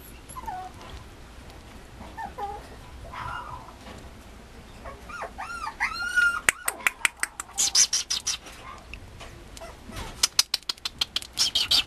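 Mame shiba puppy whimpering in short high whines, a quick run of them about halfway through. Then rapid sharp clicks and rattles, loudest near the end, as the puppy plays with its toys.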